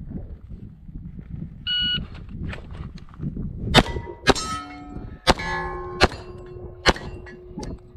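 A shot timer beeps once about two seconds in. A pistol then fires five shots over about three seconds, and each hit sets a steel plate ringing, the ring of the later plates hanging on after the last shot.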